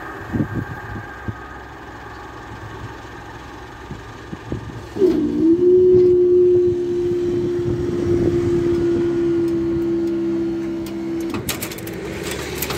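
Electric motor of a railway level-crossing barrier whining steadily as the barrier booms lift, starting about five seconds in with a brief dip in pitch as it takes the load. The whine drops to a fainter hum about a second before the end, as the booms come upright.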